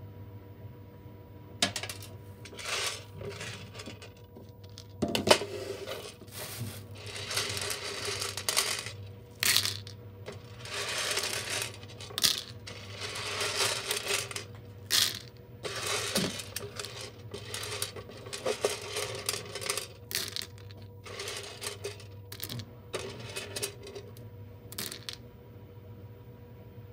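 Dried chickpeas and pinto beans clattering into a plastic colander as they are dropped and poured in by the handful: irregular bursts of rattling and sharp clicks, starting a second or two in and stopping near the end.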